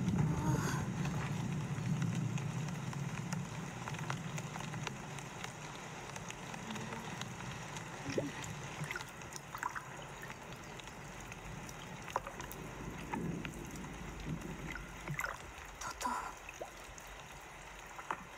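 Stream water gurgling and trickling in a film's sound design, with a low rumble that fades over the first few seconds. A few short rising chirps come through around the middle and again near the end.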